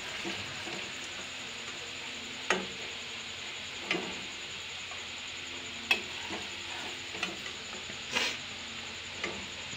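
Paneer cubes frying in hot mustard oil, giving a steady sizzle. A metal slotted spoon clinks against the pan and pot four or five times as the cubes are scooped out.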